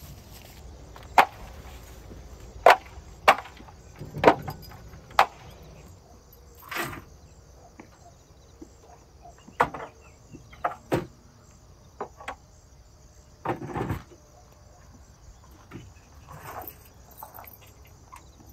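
Hard plastic knocks and clatters as plastic levelling ramps and the van's rear storage box are handled and packed away. The sharp clacks come quickly over the first few seconds, then at irregular intervals. A faint steady high hiss runs underneath.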